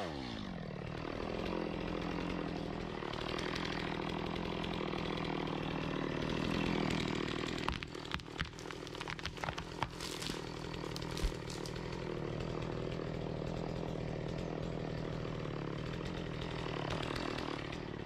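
Chainsaw felling a tree: the saw's revs drop right at the start, then it runs steadily. About eight seconds in comes a run of cracks and knocks as the tree gives way and falls, with one sharp knock about three seconds later. After that the saw runs steadily again.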